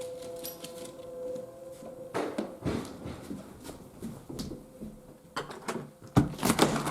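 Distant outdoor warning siren faintly holding one steady tone, which fades out about two seconds in. After that come irregular knocks and rustles, the loudest a cluster near the end.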